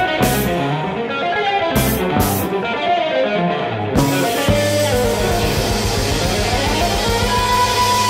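Instrumental 1970s jazz-rock: quick electric guitar lines over a drum kit, with sharp cymbal-like strikes. About halfway through, after a strike, the band settles onto a fast-pulsing low bass note, and a long held high note comes in near the end.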